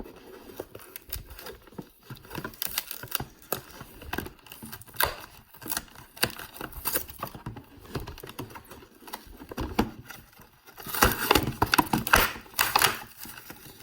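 Product packaging being handled and opened by hand: a busy run of small clicks, taps and rustles, growing louder near the end as the headlamp is taken out.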